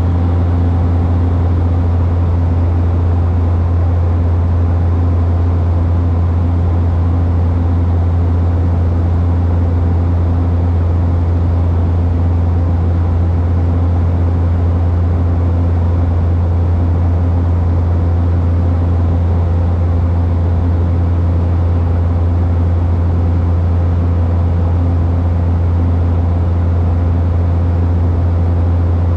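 Cabin noise of a Cessna Grand Caravan single-engine turboprop in flight: a steady, loud, deep propeller drone with fainter steady tones above it over a rush of engine and air noise.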